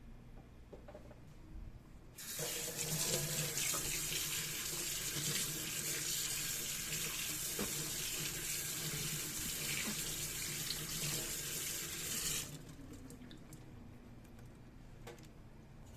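Kitchen tap running, water splashing into a sink: it is turned on about two seconds in, runs steadily for about ten seconds, and is turned off abruptly.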